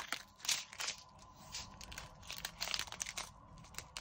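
Small plastic bags of diamond-painting drills crinkling as they are handled and cut apart with scissors, in short irregular rustles and snips.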